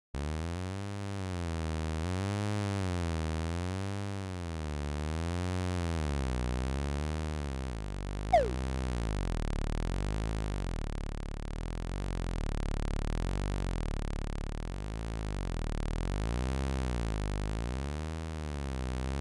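Synthesized low buzzing drone that wavers slowly up and down in pitch, about once every second and a half. About eight seconds in, a short, loud, quickly falling zip cuts across it.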